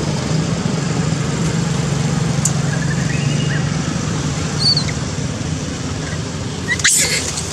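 Steady low hum of an engine running, over outdoor background noise. A few faint high chirps come in about halfway through, and a short rustle comes near the end.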